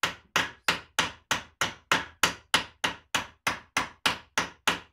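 Hand hammer striking metal held in a bench vise: a steady run of sharp blows, about three a second, forming wire rivets in a die.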